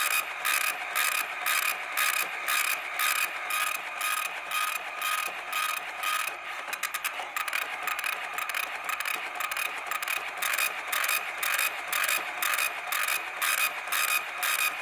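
A mechanism clicking in a steady rhythm, about three clicks a second, over a steady high hum. A little under halfway through, the clicks briefly come faster.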